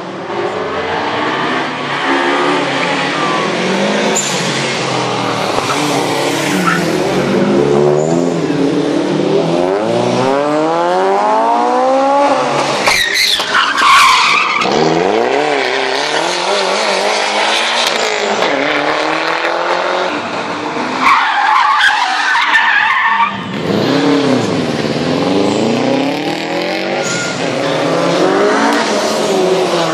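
Tuned cars' engines revving hard, the pitch climbing and falling again and again as they accelerate and slide along the street circuit. Tyres squeal twice as a car drifts past, the first about halfway through and the second a few seconds later.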